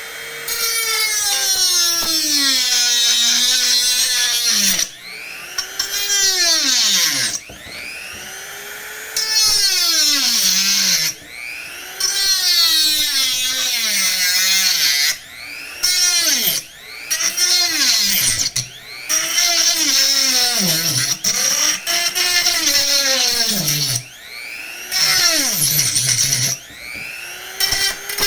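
Handheld rotary tool cutting into PVC pipe: a high-speed whine in repeated bursts, its pitch sinking each time the bit bears into the plastic, with a hiss of cutting noise and short pauses between passes.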